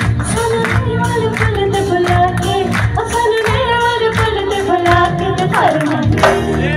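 Two female singers performing a Punjabi song live into microphones, with held and sliding vocal notes, backed by steady dholak drum strokes and a band of electric guitar and keyboard.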